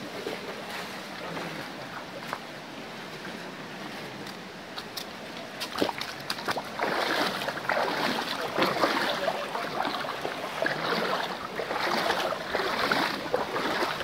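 Creek water rushing over rocks, a steady hiss that grows louder and rougher about six seconds in, with a few sharp clicks or knocks.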